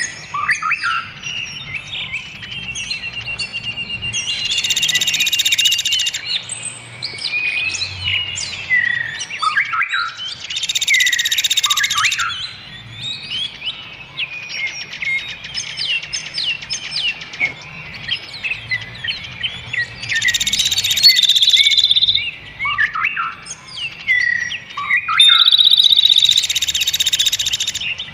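Dense songbird chorus of quick chirps and whistled up-and-down sweeps, broken four times by a loud, harsh buzzing trill lasting a second or two.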